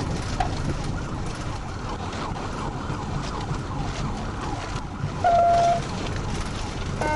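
Police cruiser rumbling over rough grass ground with a siren wailing faintly underneath. About five seconds in, a short steady tone sounds for half a second.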